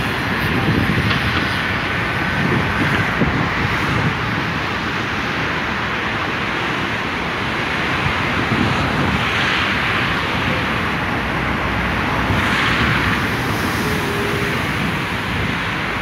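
Heavy ocean surf breaking on a rocky shore: a continuous rush of churning water, with two louder crashes of breaking waves about nine and twelve seconds in.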